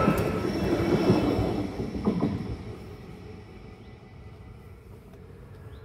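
A Stadler GTW electric multiple unit rolling past over the crossing: steady wheel-and-rail noise with a faint high squeal, which fades out about two and a half seconds in as the last car clears.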